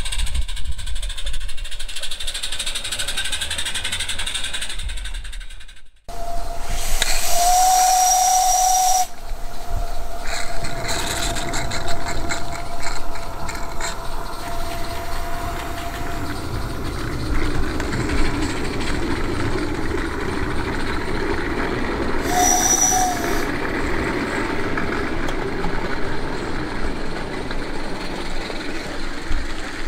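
Steam whistle of a small gas-fired live-steam garden-railway locomotive: one held blast of about two seconds, then a short toot about fifteen seconds later, over the steady hiss of the running engine.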